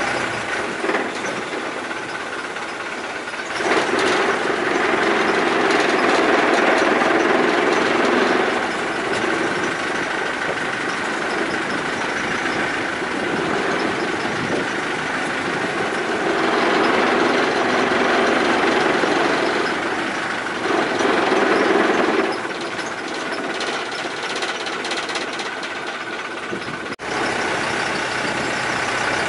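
Long-tail canal boat's engine running under way, a steady dense drone that grows louder twice for several seconds.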